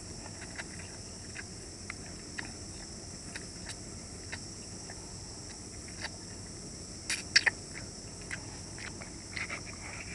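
Close-up eating of instant cup noodles: wet mouth clicks and slurping as noodles are chewed, with a few louder clicks a little past halfway, over a steady high hiss.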